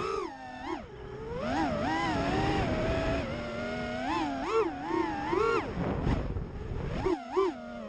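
Brushless motors of an FPV racing quadcopter (2208 1950kv on 5S, three-blade 5-inch props) whining as it flies, the pitch swooping up and down sharply with quick throttle changes through turns. Wind rushes over the onboard microphone underneath.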